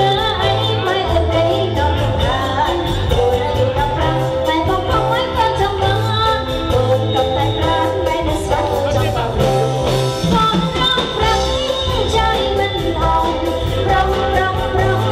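Song with a singing voice over a steady beat.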